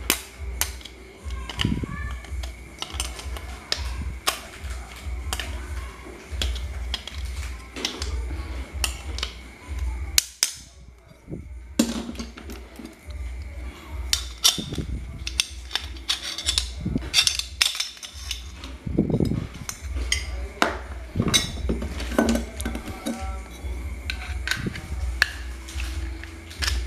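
Pliers and a screwdriver clicking, tapping and scraping against the pressed-metal end housing and shaft of an electric standing fan's motor as it is taken apart, with a short pause about ten seconds in.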